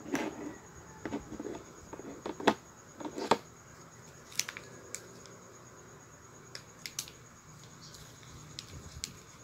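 Irregular sharp clicks and taps of small plastic cosmetic cream jars and boxed products being handled, spread over several seconds.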